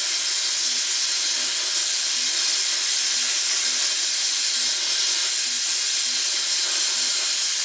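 Harris oxy-fuel torch's welding flame hissing steadily as filler rod is fed into steel.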